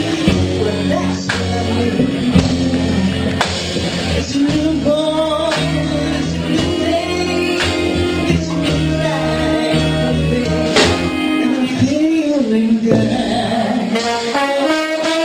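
Band music: a slow tune with held bass notes under a singing voice and guitar.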